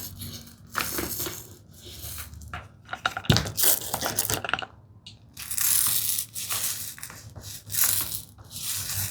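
Irregular rustling and rubbing strokes of hand work over the glued tambour slats, with a sharp click about three seconds in.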